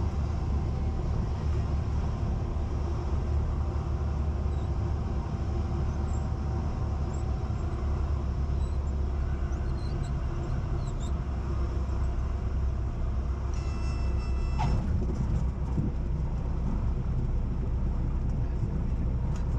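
Cessna 172 Skyhawk engine at idle power during the landing flare and touchdown, a steady low drone mixed with wind rush, heard inside the cabin. A brief high tone sounds about fourteen seconds in.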